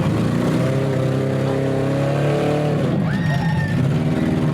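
Demolition derby compact car engines revving hard, the pitch climbing for a couple of seconds and then dropping sharply about three seconds in, with a short high squeal just after the drop.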